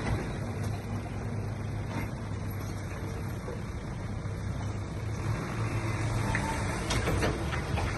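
Diesel engine of heavy earthmoving machinery running steadily, with a few light clicks or knocks near the end.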